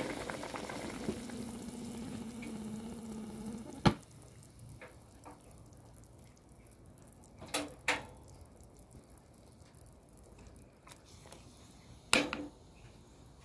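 Thai beef jungle curry bubbling at a boil in a pot. About four seconds in there is a sharp click, after which the bubbling dies away. A few more clicks and knocks follow, the loudest near the end.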